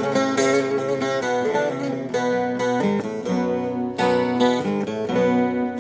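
Bağlama, the Turkish long-necked lute, playing a quick run of plucked notes as the instrumental introduction of a Turkish folk-style song.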